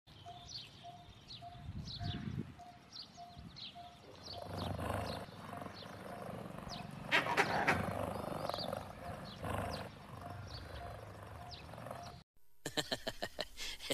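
Wild bush sounds: a bird repeating a short piping note about twice a second among high chirps, with low growling in several bursts, the loudest a noisy burst about seven seconds in. The sound drops out briefly near the end.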